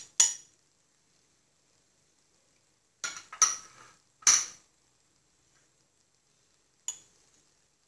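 Short clinks and clatters of a small bowl and utensils knocking against a frying pan. There is one at the start, a cluster of three between about three and four and a half seconds in, and a single one near the end, with quiet in between.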